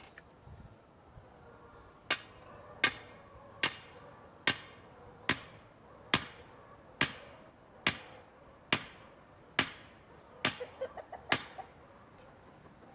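A stake being hammered into the ground: twelve sharp, evenly paced hammer blows, a little under one a second, starting about two seconds in and stopping near the end.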